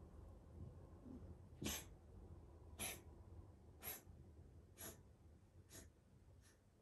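A cat coughing: six short coughs about a second apart, getting fainter toward the end. The cat is sick with adenocarcinoma.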